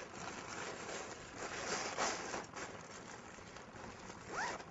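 Fabric of a ram-air trainer kite rustling and crinkling as it is pressed down to push the air out through its unzipped rear vent.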